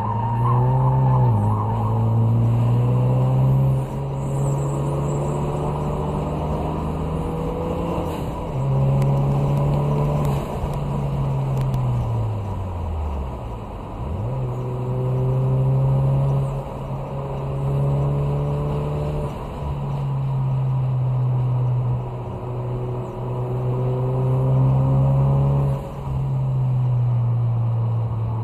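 2016 Ford Focus RS's turbocharged 2.3-litre four-cylinder engine heard from inside the cabin, running under load on a track lap. Its pitch climbs and drops back several times with the throttle and gear changes, and about halfway through the revs fall away low before climbing again.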